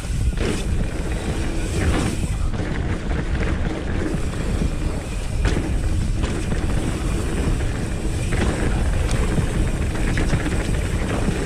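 Wind buffeting an action camera's microphone over the rumble of tyres on a dirt trail and the rattle of a Nukeproof Reactor 275 mountain bike at speed downhill, with several sharp knocks as it hits roots and bumps.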